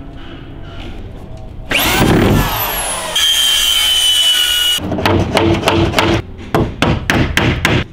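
Circular saw spinning up and cutting through plywood with a steady high whine, which stops about five seconds in. A quick, evenly spaced beat fills the last few seconds.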